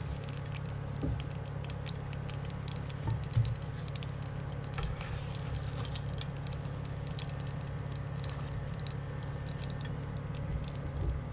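Hot oil crackling and popping in a nonstick frying pan as the last flour-dusted tilapia fillets are lifted out with a spatula, over a steady low hum. A single sharp knock about three seconds in.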